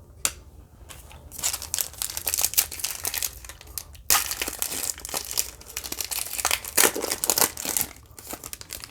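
Plastic foil trading-card pack being torn open and its wrapper crinkled, with a sharp crackle about four seconds in.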